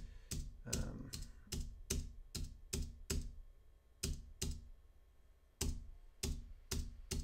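Typing on a computer keyboard: single keystrokes at a steady pace of about two to three a second, with a pause of about a second in the middle.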